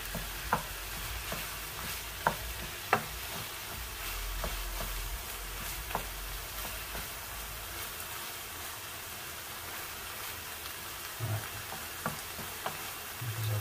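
Minced beef with diced vegetables sizzling in a frying pan while a wooden spatula stirs it, with scattered sharp knocks and scrapes of the spatula against the pan. The mince is nearly browned, its red almost gone.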